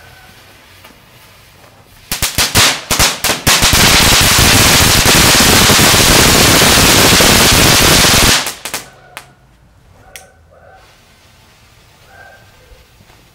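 Godzilla firework fountain going off: a few sharp cracks about two seconds in, then a loud, dense rush of crackling sparks for about four seconds that cuts off suddenly, followed by a few last pops as it burns out.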